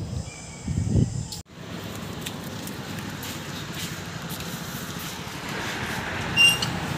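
Wind buffeting the phone's microphone about a second in. After a sudden cut comes a steady hiss of background road traffic, with scattered light clicks and a short high chirp near the end.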